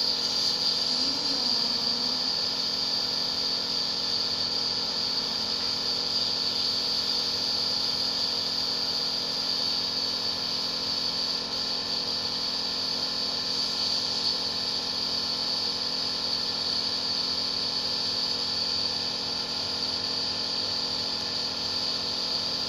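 Compressor nebulizer running steadily: an even motor hum with a hiss of air.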